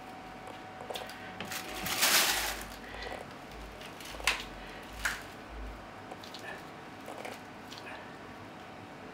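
Thin plastic bag crinkling as a wax ring is pulled out of it, loudest about two seconds in. Then come two sharp clicks and soft handling thuds as the wax ring is pressed onto the outlet on the underside of a porcelain toilet.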